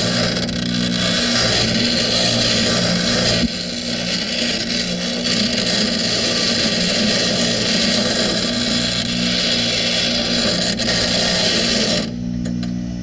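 Grinder with a grinding wheel grinding down and rounding off aluminum welds. It runs steadily and stops about a second before the end, leaving only background music.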